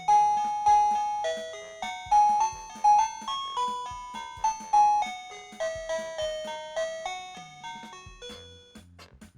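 OMERIL wireless doorbell's plug-in chime receiver playing one of its 32 electronic tunes: a melody of single electronic chime notes, about two a second, that dies away near the end.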